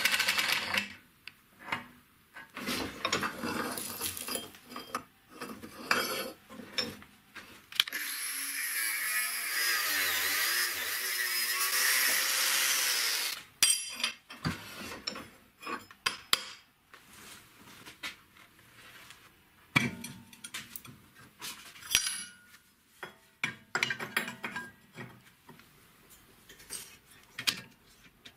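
Drill with a step bit cutting through square steel tubing in a vise, in short bursts, with a steady run of power-tool cutting on metal lasting about five seconds midway. Afterwards, steel tube pieces and hand tools clink and knock as they are handled and fitted.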